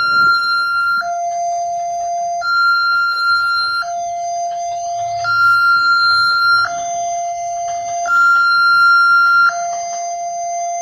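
Railway level crossing's electronic two-tone siren on an Alkmar-type crossing, alternating a high tone and a tone an octave lower, each held about a second and a half, warning of an approaching train.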